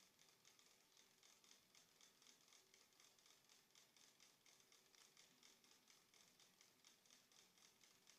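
Near silence: faint recording hiss that pulses softly a few times a second.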